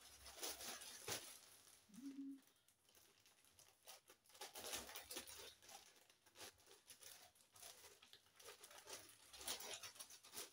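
Faint rustling and crinkling as a paper bag is handled, opened and rummaged through, with scattered soft clicks of packaging inside.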